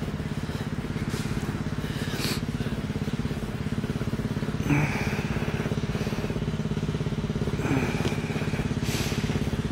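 An engine running steadily with a low, evenly pulsing drone, broken by a few brief rustles.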